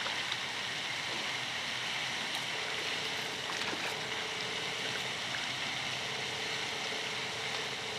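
Steady splashing of a pond's spray fountain, an even rushing of falling water, with a faint steady hum joining about two and a half seconds in.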